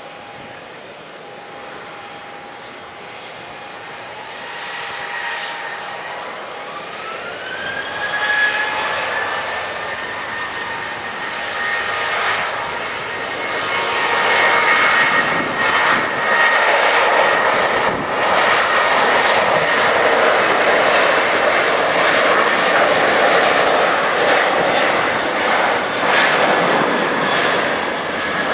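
Boeing 737-800's CFM56-7B turbofan engines spooling up from idle to high thrust, typical of the start of a takeoff roll: a steady whine climbs in pitch about seven seconds in, then gives way to a loud, steady jet roar.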